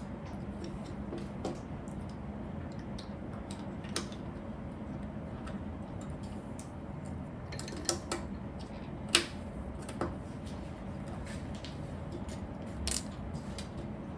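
Plastic Lego pieces clicking and being pressed together by hand: scattered sharp clicks, a cluster around eight to ten seconds in, the loudest about nine seconds in, over a steady low hum.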